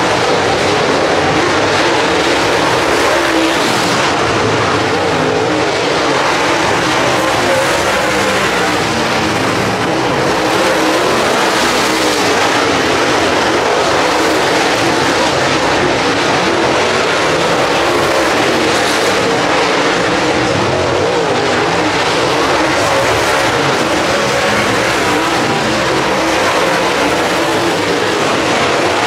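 A field of dirt late model race cars running flat out around the dirt oval, their engines blending into one loud, steady roar.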